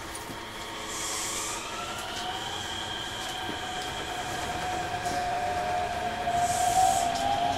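Mitsubishi IGBT VVVF inverter traction motors of a Shin-Keisei 8900 series EMU accelerating from a stop, heard inside the car. The whine is in its asynchronous stage: a steady high tone over fainter tones that glide slowly upward, growing louder as the train gathers speed.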